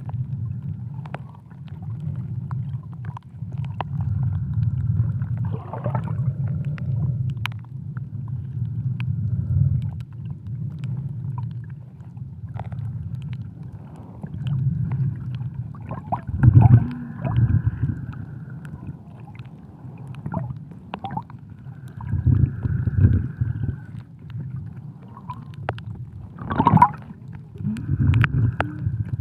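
Underwater recording of the sea: a steady low rumble with gurgling bubble bursts every few seconds, the loudest about two-thirds of the way through and near the end.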